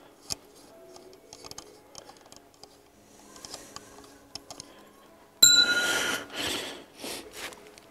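Light clicks and ticks of small metal camera-adapter parts being handled and unscrewed on a telescope's imaging train. About five and a half seconds in there is a sudden loud clank, then a second or two of rustling that fades.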